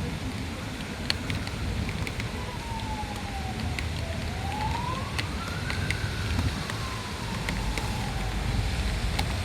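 A siren wailing slowly in the distance, falling, rising, then falling again. It sounds over the steady noise of a heavy rainstorm with scattered drops ticking close by.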